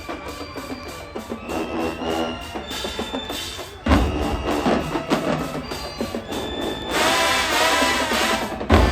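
Marching band playing: a few seconds of sparse drumline percussion with light horn notes, then a sudden loud hit about four seconds in as the full band with brass and drums comes in.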